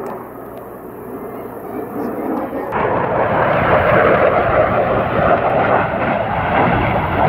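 Jet noise from a Thunderbirds F-16 fighter making a low pass. A broad rushing sound swells and jumps up sharply about three seconds in, then stays loud.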